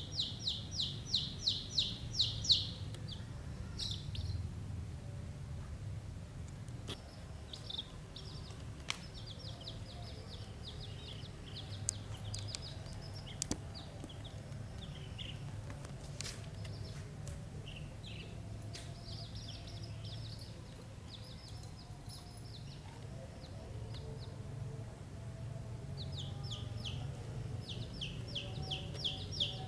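Young chicks peeping: rapid runs of short, high-pitched peeps, loudest in the first two or three seconds and again near the end, with scattered peeps in between. A few sharp clicks and a low steady hum are underneath.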